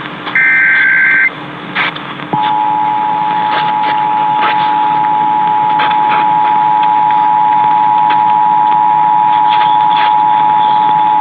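A burst of Emergency Alert System SAME header data: warbling tones near 1.5 and 2 kHz lasting about a second. About two seconds in, the EAS two-tone attention signal (853 and 960 Hz) starts and holds steadily for about nine seconds. Both are heard over an AM radio broadcast with hiss and static crackles.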